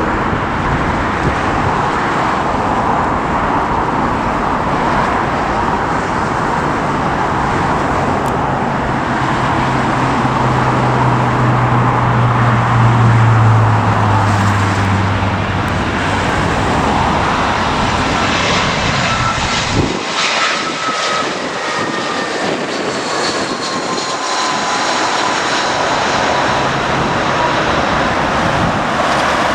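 Jet airliner engines running loud as an aircraft passes. In the second half a high engine whine slides slowly down in pitch.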